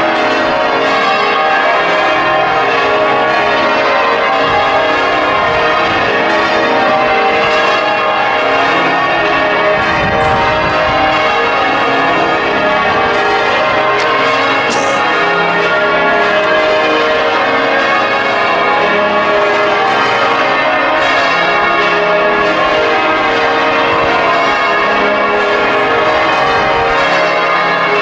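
Change ringing on Liverpool Cathedral's ring of thirteen bells, the heaviest ringing peal in the world, with an 82 cwt tenor in A♭. The bells strike one after another without a break, their tones overlapping and hanging in the air.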